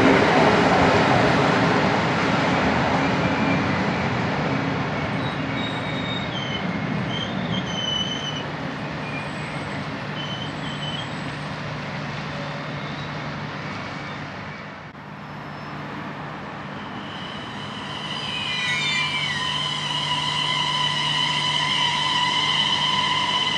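Train running on the rails through the station, its wheels squealing at high pitch, the noise fading away over about fifteen seconds. Then the rail noise builds again, with steady high whining tones.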